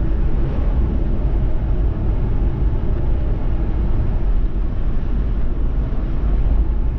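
Steady low rumble of a car driving at road speed: engine and tyre noise with no distinct events.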